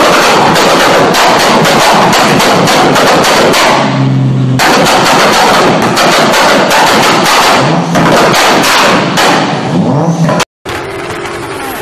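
Big-turbo Mitsubishi Lancer Evolution's turbocharged 4G63 four-cylinder run hard, its exhaust crackling and banging in a fast, dense string of pops. There is a brief lull with a steady low engine note about four seconds in, then the bangs resume. The sound cuts off abruptly near the end, followed by a quieter engine sound.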